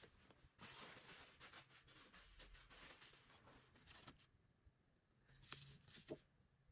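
Faint rustling of a thin clear plastic sheet being peeled off the smoothed frosting on top of a cake, followed by a few small faint ticks near the end.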